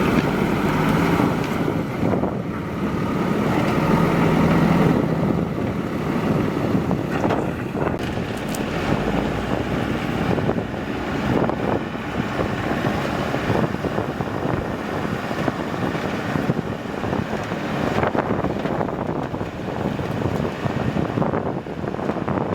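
Diesel engine of a JCB 3DX backhoe loader running under load, louder for the first five seconds, with scattered knocks and rattles and wind buffeting the microphone.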